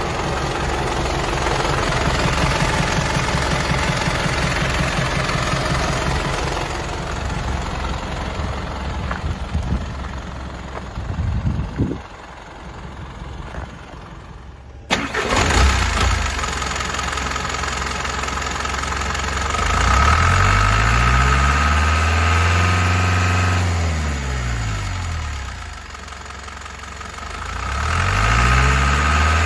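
Hino S05C four-cylinder diesel engine of a 2002 Hino Dutro truck idling steadily, then revved up and let back down twice in the second half.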